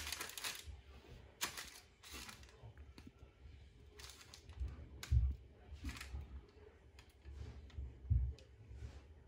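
Small clicks, taps and papery rustles of cookie cutters and dough being handled on baking parchment on a kitchen worktop, with a few soft low thuds.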